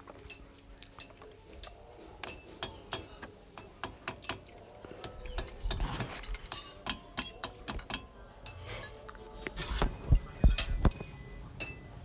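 Hammer tapping a steel dust cap onto a car's rear wheel hub: a run of light metallic clinks with some ring, and a few heavier blows near the end, as the cap is seated over a newly fitted rear wheel bearing.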